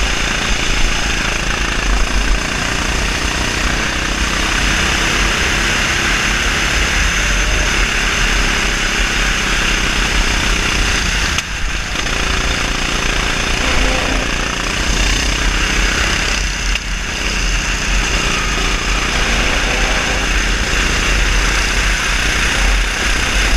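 Onboard sound of a 390cc single-cylinder four-stroke rental kart engine running hard at racing speed. The note drops briefly twice, about 11 and 17 seconds in, as the throttle comes off for corners.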